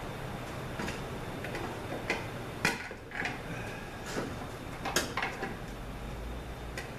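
Long screwdrivers clicking and scraping against metal inside a 5L40E automatic transmission case while prying at a very tight snap ring holding the clutch pack: a series of sharp metal clicks, the loudest about two and a half and five seconds in.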